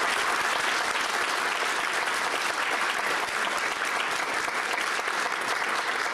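Audience applauding steadily, many people clapping.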